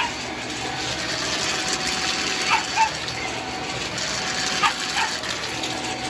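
A dog barking in short, high barks: one at the very start, two in quick succession about two and a half seconds in, and one more about four and a half seconds in. Under them a cordless Shark stick vacuum runs steadily.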